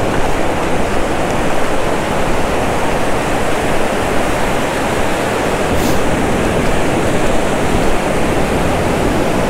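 Ocean surf washing in over the shallows: a steady, loud rush of water noise.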